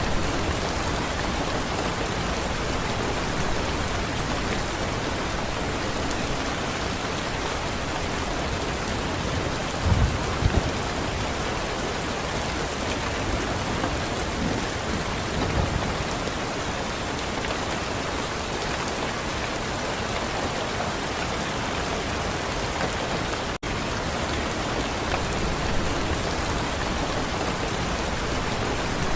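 Steady, even rain pouring down, with two brief low rumbles, likely distant thunder, about a third of the way in and again around halfway. The sound cuts out for a split second about four-fifths of the way through.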